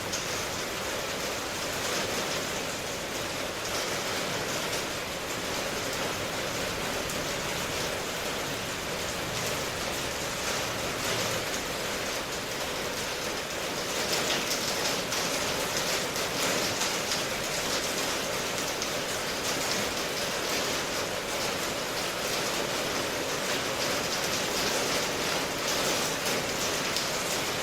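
Steady rain ambience: an even hiss of rainfall with fine drop patter, growing a little louder about halfway through.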